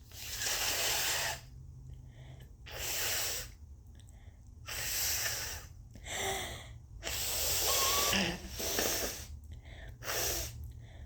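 A congested person breathing heavily in and out, about seven rushes of breath, each roughly a second long, while trying to bring on a sneeze with turmeric in the nose.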